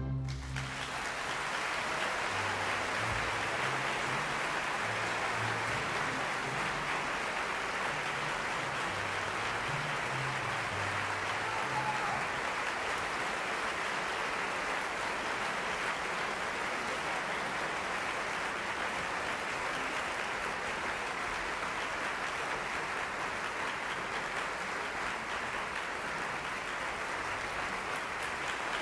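Theatre audience applauding steadily, just as the orchestra's last chord dies away at the start.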